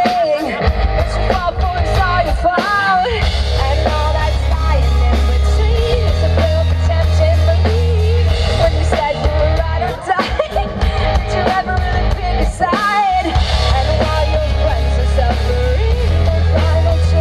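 Live rock band playing: electric guitar, bass and drum kit, with a singer's voice carrying the melody.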